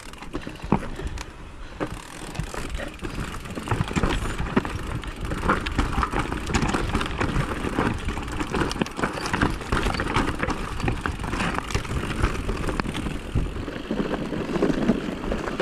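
Electric enduro mountain bike riding down rocky singletrack: tyres crunching over stones and the bike rattling with many sharp knocks, over a steady rumble of wind and ground noise on the handlebar microphone. It gets louder and busier about four seconds in.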